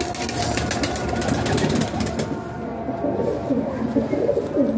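Domestic pigeons cooing in a loft, a continuous overlapping chorus, with a run of short crackling sounds in the first two seconds.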